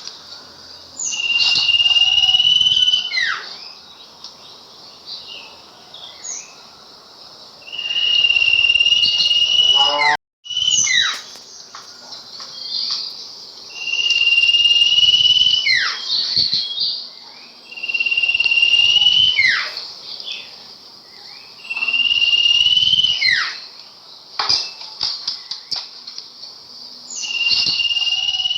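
Sirpu songbird singing a repeated phrase: a steady whistled note held for a second or so, then quick downward-sliding notes, coming about every four to six seconds. A constant high buzz, like insects, runs underneath, and the sound cuts out briefly about ten seconds in.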